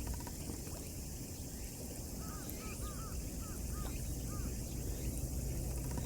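A bird calling a quick run of about six short, arched chirps, starting about two seconds in, over a steady low rumble and hiss in the background.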